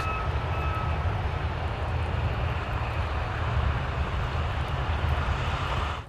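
Steady low outdoor rumble under an even wash of noise, with a faint steady whine in the first second.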